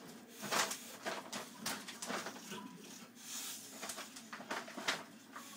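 English bulldog rummaging in a torn bag of dry dog food. The bag crinkles and the kibble crunches in irregular bursts of sharp clicks and rustles.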